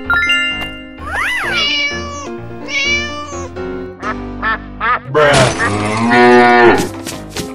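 Cat meows from an animal cartoon, several short ones and then one long, loud meow about five seconds in, over upbeat background music. A quick rising-and-falling whistle-like glide comes about a second in.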